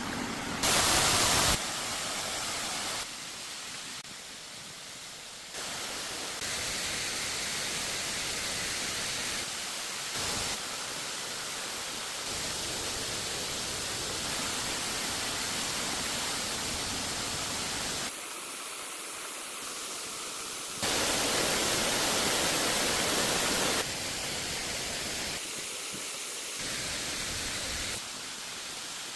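Steady rushing water of a waterfall, its loudness and tone jumping abruptly every few seconds from one stretch to the next. It is loudest briefly about a second in and for a few seconds past the two-thirds mark.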